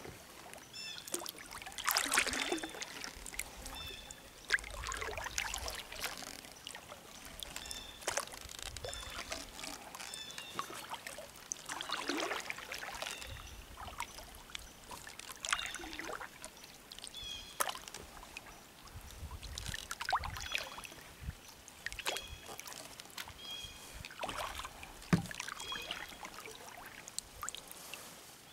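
Kayak paddle strokes in calm pond water: a splash and swirl every two to three seconds, with water trickling and dripping off the blade between strokes.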